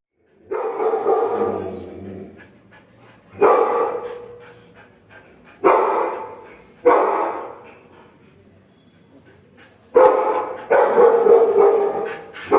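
A dog barking: about six loud barks with pauses between them, the last few coming close together near the end.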